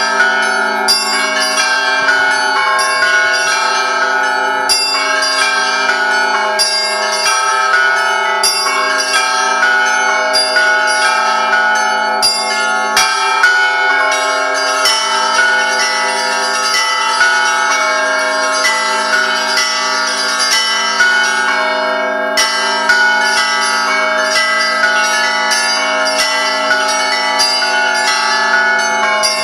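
Russian Orthodox church bells ringing: many bells struck in quick, irregular succession, their tones overlapping into one continuous peal.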